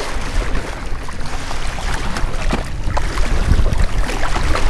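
Strong wind buffeting the microphone on an open boat: a loud, steady low rumble with rushing noise over it and a few small knocks.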